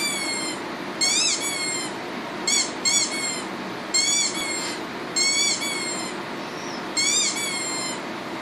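Rubber duck squeak sound effect played back from an online recording: about seven short, high squeaks, irregularly spaced and some in quick pairs, each rising then falling in pitch.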